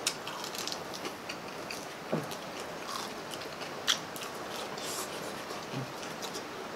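Close-up eating sounds: bites into crispy deep-fried chicken drumsticks and crispy pata, and chewing. Scattered sharp crunches throughout, the loudest near the start and about four seconds in.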